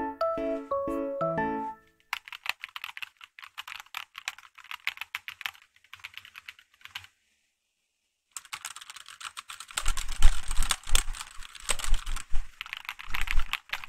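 Typing on a mechanical keyboard: a fast, dense run of key clacks after a short bit of music, a brief pause, then a louder burst of typing with deep thuds under the clicks.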